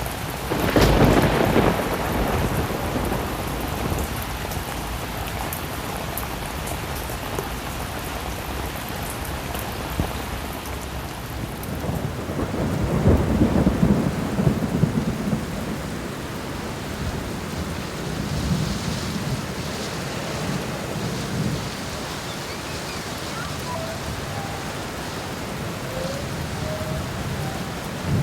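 Heavy rain pouring steadily, with thunder rumbling: a loud peal about a second in and further long, lower rolls in the middle and later.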